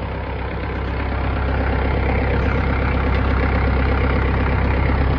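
Diesel engine of a 160-class excavator running steadily, freshly rebuilt and just fired up after sitting unused for a year. It gets louder over the first few seconds, then holds steady.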